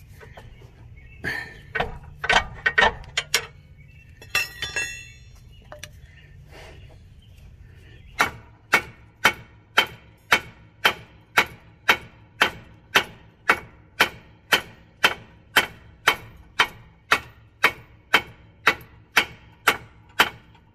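Hammer blows on the steel front suspension of a 2012 Subaru Legacy, striking to shock a seized lower ball joint loose. A few scattered knocks and one ringing metal clank come first, then about eight seconds in a steady run of hard strikes begins, about two a second.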